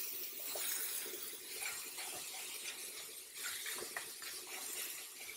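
Silicone spatula stirring chopped strawberries in a hot nonstick frying pan: soft, irregular scrapes and taps over a faint steady hiss.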